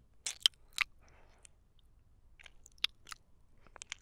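Close-miked wet mouth sounds: about eight short, sharp smacks and clicks of lips and tongue, spaced unevenly.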